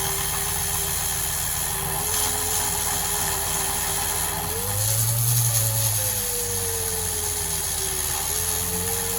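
A motor running steadily, its hum drifting slowly up and down in pitch, with a brief louder swell about five seconds in.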